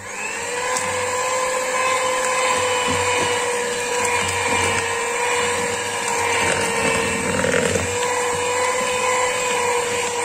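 Philips electric hand mixer switched on at its lowest speed and running with a steady motor whine, its beaters churning flour into creamed butter and sugar for a stiff cookie dough.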